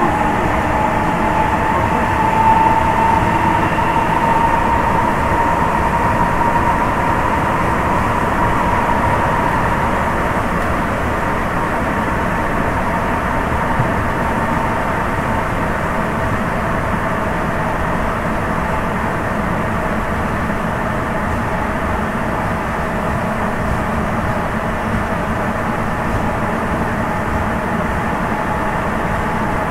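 Sapporo Municipal Subway 9000-series rubber-tyred train running at speed through the tunnel, heard from inside the car as a steady rumble. A motor whine rises slightly over the first several seconds, then fades as the run settles.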